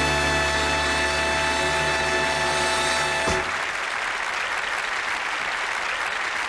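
A television theme tune ending on a long held final chord that cuts off about three seconds in, followed by studio audience applause.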